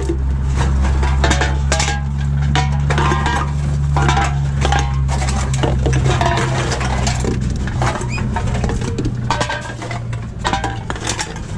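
Reverse vending machine for drink-container deposits running with a steady low motor hum while cans and bottles clink and clatter through it. The hum dies away about nine seconds in.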